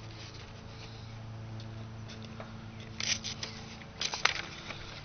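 A faint steady low hum, then short bursts of rustling and clicking about three and four seconds in.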